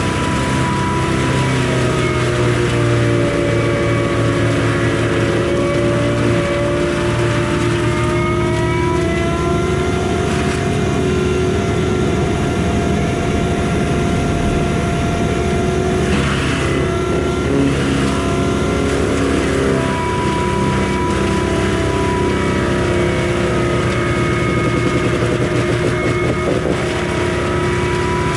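Kubota skid steer's diesel engine and Bradco MM60 drum mulcher running hard and continuously, with a whine that sags in pitch a few seconds in and climbs back up about ten seconds in.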